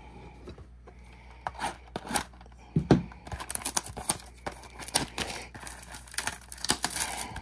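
Packaging of a trading-card mega box being torn open and handled: plastic wrap and cardboard crinkling and tearing, with scattered clicks that turn into dense, irregular crackling about three seconds in. A dull knock comes near the middle.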